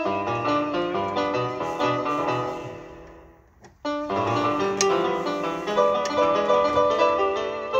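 Piano playing a hymn tune in full chords. The phrase dies away about three seconds in, and after a short pause a new phrase begins.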